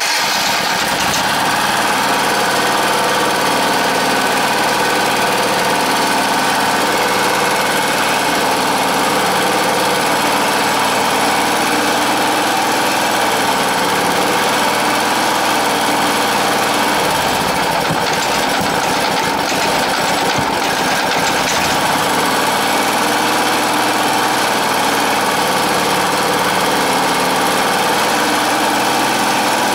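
Small air-cooled generator engine running steadily on natural gas through a gas conversion kit, while the kit's adjustment screw is set for smooth running. Its note shifts for a few seconds about two-thirds of the way through, then settles again.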